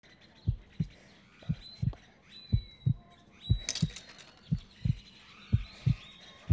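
A slow heartbeat sound effect: pairs of low, dull thumps (lub-dub) about once a second, six times over. Faint high whistling tones, some gliding down, sound above it about halfway through.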